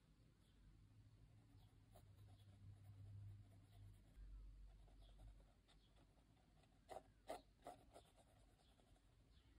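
Mechanical pencil with 2B lead scratching faintly on sketchbook paper in short hatching strokes, with a quick run of sharper, louder strokes about seven seconds in.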